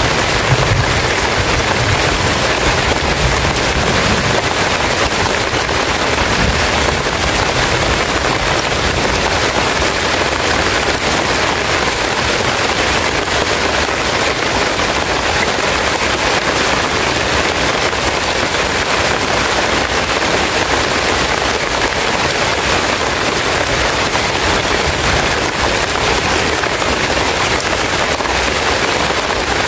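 Steady heavy rain, a dense, even patter of drops on leaves.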